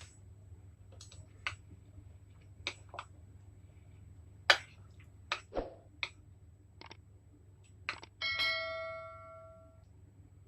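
Scattered light clicks and taps of eating noodles with utensils, then a single ringing ding about eight seconds in that fades over about a second and a half.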